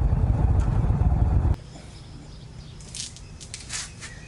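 Motorcycle riding noise, a loud low rumble of engine and wind, that cuts off abruptly about a second and a half in. After that only quiet outdoor background is left, with a few faint rustling scrapes.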